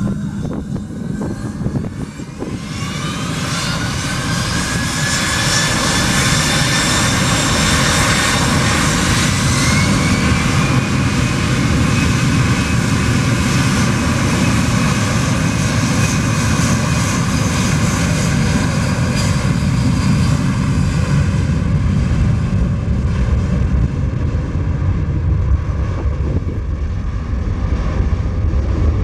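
Boeing C-17 Globemaster III's four turbofan jet engines spooling up, several whines rising in pitch over the first ten seconds, then running loud and steady at high power as the aircraft starts its takeoff roll. Near the end the high whine fades while the low rumble stays.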